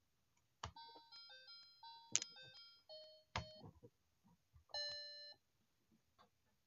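Electronic elephant toy piano playing short beeping tunes from its small speaker as the button on the elephant's head is pressed again and again. Each press gives a plastic click and cuts off the tune for a new one, four snippets in all, the last a single louder held note.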